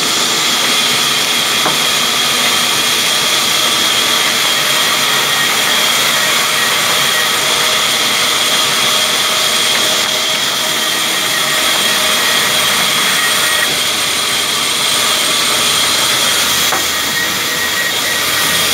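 Belt-driven sawmill machinery running steadily, a loud even hiss with a steady high whine.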